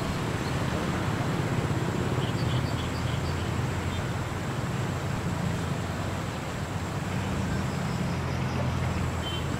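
A motor running steadily, a low rumble under an even noisy hiss, with a few faint short high chirps about two to three seconds in.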